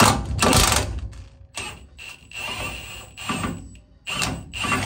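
Cordless Milwaukee impact wrench run in several short bursts with a high motor whine, backing out a driveshaft carrier bearing mounting bolt.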